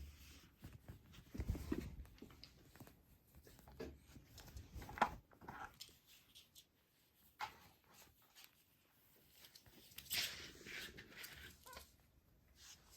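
A kitten scuffling and mouthing a fish: faint, irregular soft knocks and rustles, with a few louder clusters.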